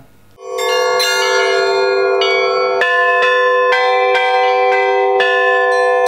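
Russian Orthodox church bells rung by ropes on their clappers: several bells of different sizes struck in a quick, uneven run, each strike ringing on under the next. This is the festive Easter-week ringing. It starts about half a second in.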